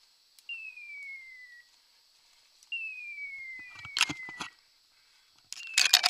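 Dog's electronic beeper collar sounding a pure falling tone about a second long, repeated every two seconds or so, three times. From about four seconds in, loud crackling and snapping of twigs and branches as someone pushes through dense brush.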